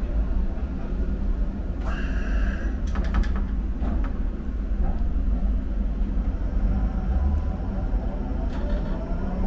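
German subway train running, with a steady low rumble of wheels on rails, a brief high squeal about two seconds in and a few sharp clicks just after.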